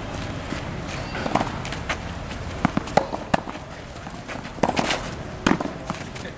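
Tennis balls being struck by rackets and bouncing on the court: a scattered series of sharp knocks at an uneven pace, the loudest about a second and a half in, around three seconds in, and near five seconds in.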